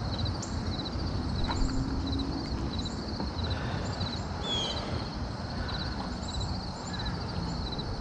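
An insect chirping steadily in short pulse groups that repeat at an even rhythm, over a low outdoor rumble, with a few faint higher bird chirps.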